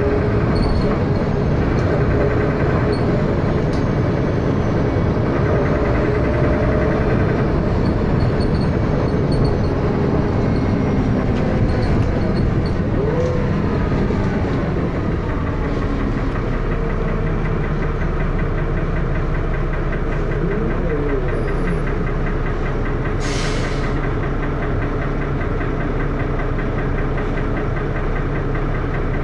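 Diesel engine of a Dennis Arrow double-decker bus running, heard from on board. About halfway through it settles to a steady idle with a rapid, regular knocking: the loud knocking noise this bus is known for.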